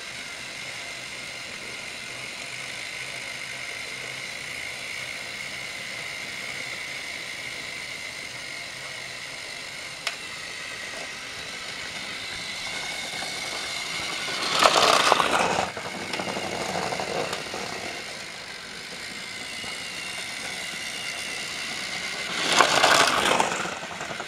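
Battery-powered Trackmaster toy train motor whining steadily as it pulls its trucks around plastic track. Two louder bursts of clatter, each about a second long, come about two thirds through and near the end.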